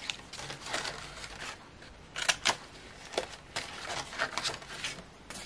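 Stiff printed card rustling as die-cut pieces are pressed out of a card sheet by hand, with a few sharp snaps and clicks around the middle.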